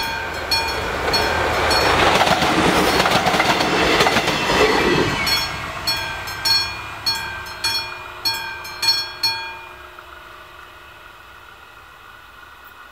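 Level-crossing bell, an old-style electric bell, ringing at about two strikes a second. A class 843 diesel railcar runs over the crossing between about one and five seconds in, with wheel clatter. The bell stops at about nine and a half seconds in, as the crossing switches off its warning.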